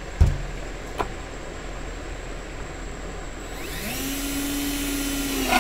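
A thump just after the start, then a cordless drill with a spade bit spins up about three and a half seconds in and runs steadily, its bit cutting into the plastic wall of a five-gallon bucket.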